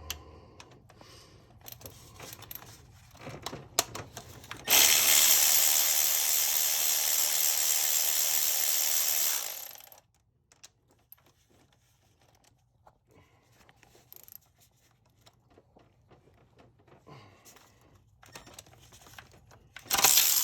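A cordless power tool runs steadily for about five seconds, backing out the 10 mm cam cap bolts on a 2.4L Ecotec engine, then winds down. Light clicks and clatter of tools and parts come before it.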